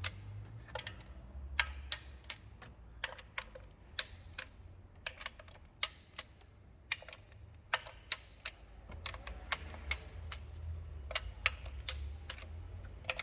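Torque wrench ratcheting and clicking in irregular sharp clicks, a few a second and some in quick pairs, as the valve cover bolts are tightened to 5 N·m in the first of two stages, over a steady low hum.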